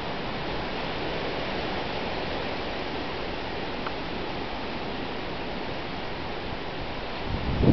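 Steady rushing hiss of storm wind. Near the end, gusts start to buffet the microphone with a louder, deeper rumble.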